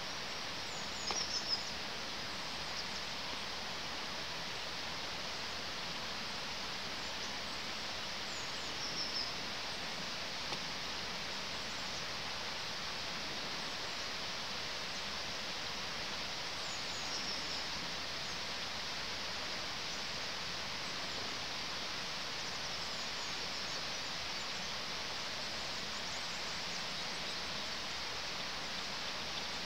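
Steady outdoor background hiss with a few short, high bird calls, the loudest about a second in and another around nine seconds in.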